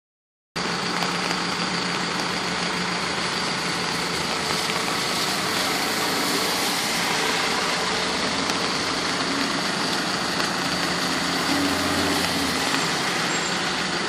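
Street traffic on wet pavement: a steady hiss of car tyres on the wet road mixed with engines running, with a lower engine hum swelling briefly near the end.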